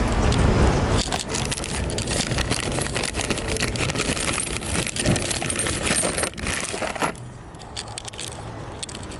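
Loose metal tools and small parts clinking and rattling, a dense run of clicks that stops about seven seconds in, with a few scattered clicks after.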